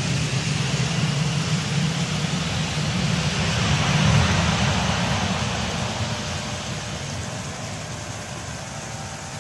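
Embraer ERJ-175's General Electric CF34-8E5 turbofans running during the landing rollout, a steady rumbling roar that swells about four seconds in, then slowly fades as the airliner rolls away down the runway.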